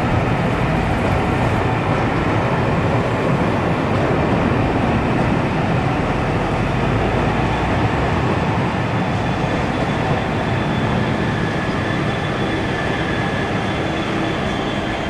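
Passenger coaches rolling past on the rail with a steady, loud wheel-and-track rumble. From about nine seconds in, the trailing Class 66 diesel locomotive 66799 passes, adding a steady engine and fan hum on top of the rumble as the train draws away.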